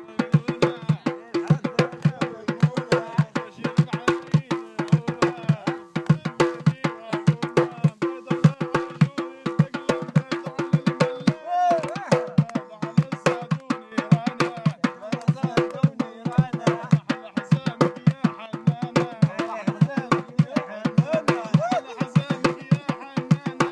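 Traditional Bedouin hand drumming, fast strokes several times a second, with voices singing a song over it; the drumming thins briefly about halfway through, then carries on.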